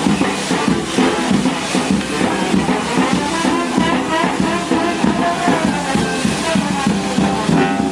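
Music with instruments and drums, playing steadily.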